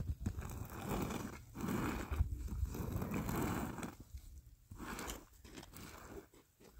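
A long-handled brush scraping across a concrete roof in repeated strokes, each about a second long, with short pauses between them.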